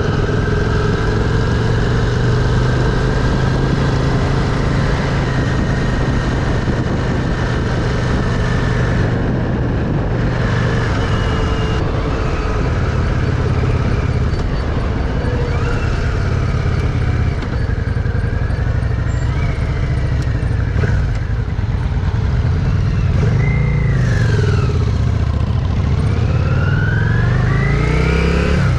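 Yamaha Virago V-twin motorcycle engine running at cruising speed under wind rush, heard from the rider's seat. Near the end the engine note drops and then climbs again as the bike slows and picks back up.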